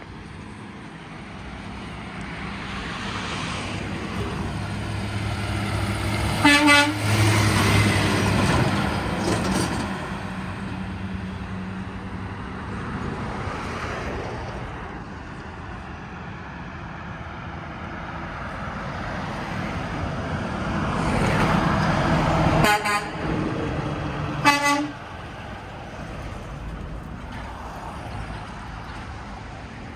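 Heavy trucks passing on a road, their engine noise swelling and fading one after the other. The first gives a short horn blast as it goes by. The second gives two short blasts about two seconds apart.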